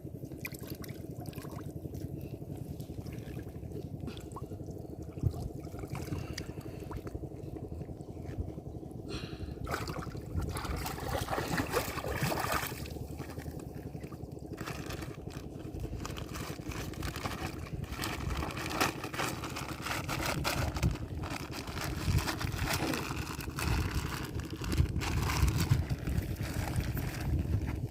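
Water splashing and sloshing in irregular spells, heaviest about ten seconds in and again near the end, over a steady low rumble.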